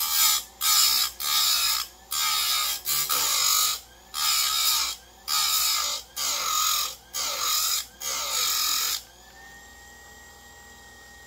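Electric chainsaw chain grinder's wheel biting into the cutters of a new chainsaw chain, about nine short grinding passes as the top plates are re-angled a little steeper than the factory angle. The grinding stops about nine seconds in, leaving the grinder motor's faint steady hum.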